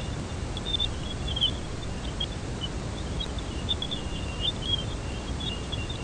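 NASA's sonification of Jupiter: electromagnetic emissions picked up by a space probe and shifted into the range of hearing. It is a steady low rumble and hiss with scattered short high chirps.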